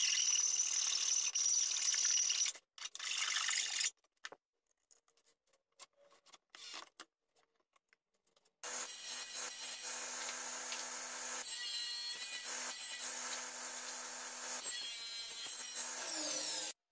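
A rasping rub on wood for a few seconds, then scattered light clicks and knocks as a hinged wooden door is handled. From about halfway a table saw runs steadily, its sound changing briefly twice as wood is fed through on a crosscut sled, and cuts off suddenly near the end.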